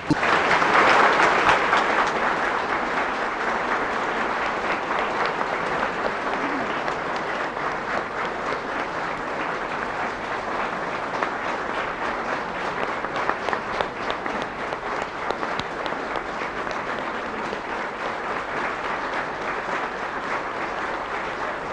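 A large seated audience applauding in a hall, loudest about a second in and slowly easing off while the clapping goes on.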